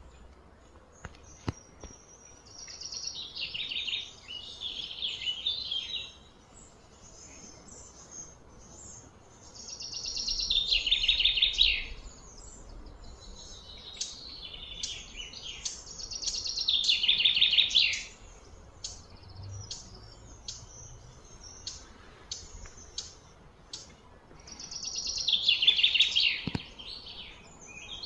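Birds chirping outdoors: four loud bursts of rapid, falling trills about two seconds each, with short chirps scattered between them.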